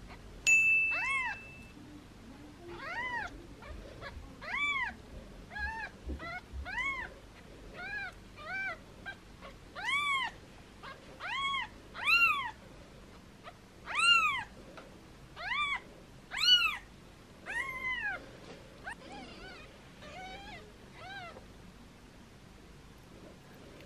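Newborn kittens, eyes still closed, meowing over and over in thin, high cries that rise and fall in pitch, about one a second, growing fainter in the last few seconds. A short flat high tone sounds just after the start.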